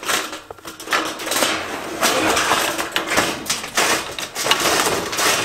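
Corrugated metal roofing sheets scraping and clattering against each other as they are slid into place, in repeated noisy surges.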